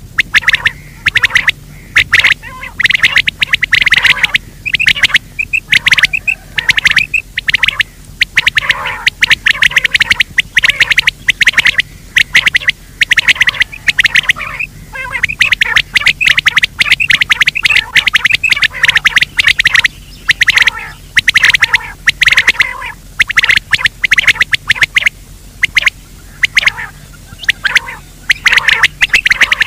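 Recorded game-bird calls played as a hunting lure: loud, harsh calls repeated rapidly and almost without a break, over a low steady electrical hum.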